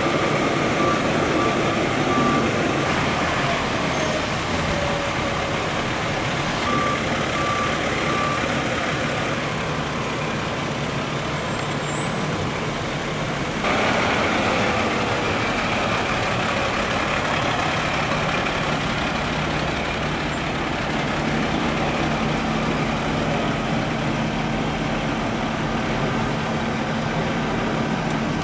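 Diesel engine of a fire department water tender running as the heavy truck moves off. A backup alarm beeps in two short runs during the first several seconds.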